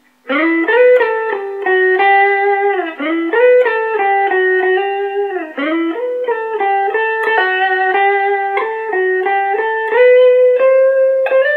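Les Paul-style electric guitar playing a single-note melodic intro line, with sustained notes and slides between some of them. It ends on a higher held note near the end.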